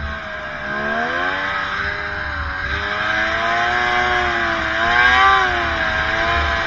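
Snowmobile engine running under throttle, its pitch rising and falling as the rider speeds up and eases off, highest about five seconds in.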